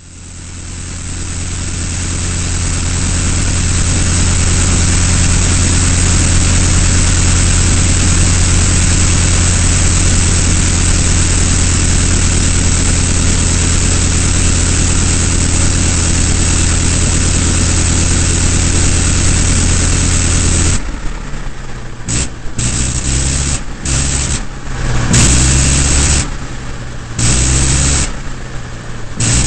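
Avro 504K biplane's rotary engine in flight: a steady drone that fades in over the first few seconds. About two-thirds of the way in, it starts cutting in and out in quick, irregular bursts.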